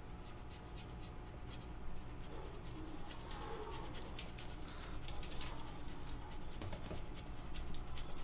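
Block of hard Romano cheese being grated on a rasp-style micro-grater, a quick series of short scraping strokes that gets a little faster and louder in the second half.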